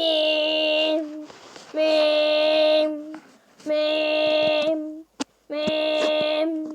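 Imitation Emergency Alert System alarm tone: a steady tone held on one pitch, sounding in four beeps of about a second each with short gaps. A sharp click falls between the third and fourth beeps.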